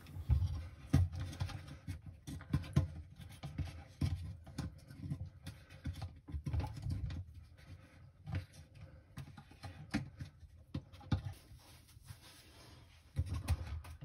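Hands pressing and rubbing a replacement rubber pump-sump seal into its seat around a dishwasher's plastic sump housing: irregular soft clicks, taps and scratchy rubbing of fingers and a sponge on plastic and rubber.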